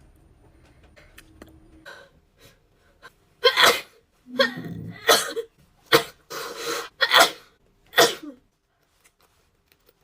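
A woman sneezing about five times in quick succession, with breathy in-breaths between the sneezes, starting about three and a half seconds in.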